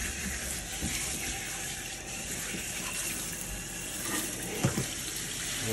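Pull-down kitchen faucet sprayer running, a steady hiss of water spraying onto a wet capuchin monkey and splashing into the sink, with a couple of brief louder sounds near the end.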